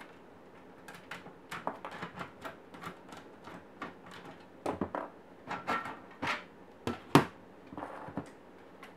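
Screws being backed out of a mini PC's sheet-steel case with a hand screwdriver, a string of small clicks and metal taps, then the steel top cover being slid off and set down. Louder clanks and knocks come in the second half, the loudest about seven seconds in.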